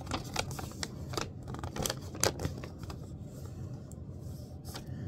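Paper invoice sheets being handled, rustling with irregular sharp crackles about every half second.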